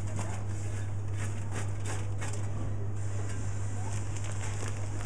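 A steady low hum with faint scattered ticks over it.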